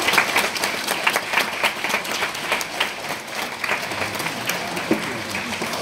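Audience applauding, many hands clapping in a dense, steady patter that starts at once and keeps up throughout.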